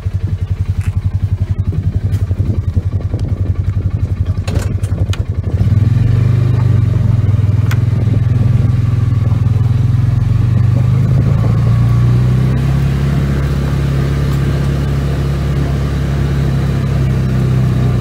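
Polaris side-by-side utility vehicle's engine running, pulsing evenly at idle, then getting louder and settling into a steady drone about five seconds in as the vehicle pulls away and drives along a dirt trail. A few sharp clicks just before it pulls away.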